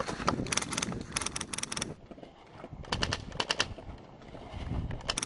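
Airsoft rifles firing on full auto: two rapid strings of sharp snapping shots, with a third starting near the end.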